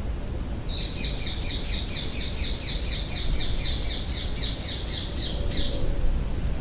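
A bird squawking loudly in a fast run of repeated calls, about four to five a second, starting under a second in and stopping near the end, over a steady low rumble of wind.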